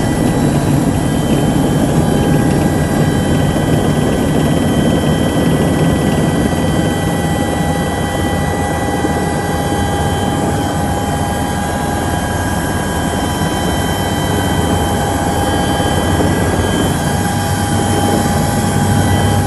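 Light helicopter's engine and rotors running steadily, heard from inside the cockpit, with a steady high-pitched whine over the dense rotor noise.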